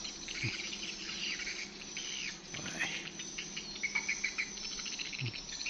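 Swiftlets chittering: many short dry twitters and rising-and-falling chirps over a continuous high hiss.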